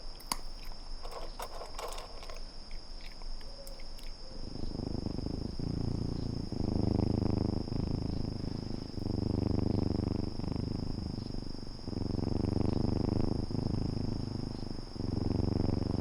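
A cat purring in a steady rhythm of breaths, each about a second and a half long, starting about four seconds in. Before that there are a few faint clicks over a steady high-pitched whine.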